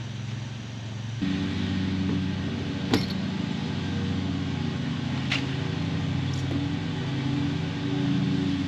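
A steady motor or engine hum that steps up louder about a second in, with two sharp knocks partway through.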